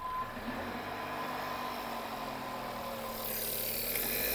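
VW 1.4 TSI four-cylinder petrol engine running in the engine bay, its pitch sinking a little as the revs settle. A louder hiss comes in about three seconds in.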